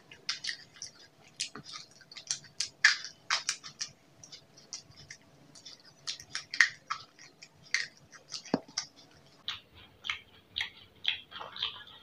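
Close-miked chewing of tandoori quail: irregular sharp crunches and clicks, two or three a second.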